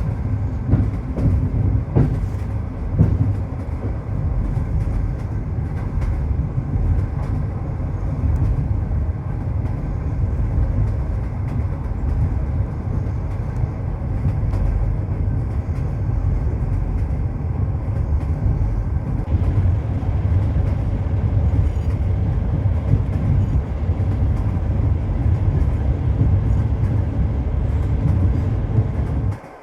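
Train running along the track: a steady, loud, low rumble of wheels on rails, with a few sharp knocks in the first few seconds. It cuts off suddenly just before the end.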